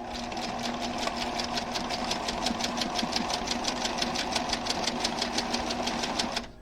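Sewing machine stitching a seam at a steady, fast pace, about seven or eight needle strokes a second, then stopping abruptly near the end.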